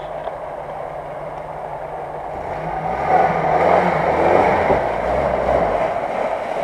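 UAZ-469 off-roader's engine pulling under load as it drives through a muddy creek, its wheels churning and splashing through the water. The engine note rises about halfway through as the splashing grows loudest.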